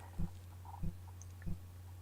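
Faint, evenly spaced low thumps, three in two seconds, over a steady low hum.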